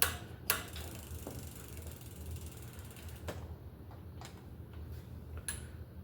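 Ratcheting clicks from work on a bicycle's brake: a fast run of fine ticks that fades out over a couple of seconds, with a few separate sharp clicks.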